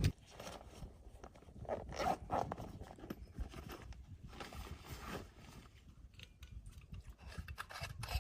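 Irregular rustling and crunching with scattered light clicks.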